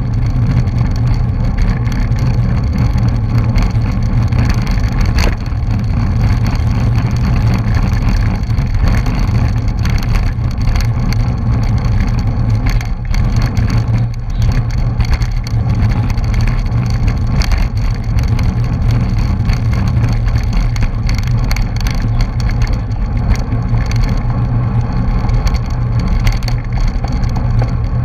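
Wind rushing over the microphone of a bike-mounted action camera at racing speed: a loud, steady low rumble with constant crackling buffets.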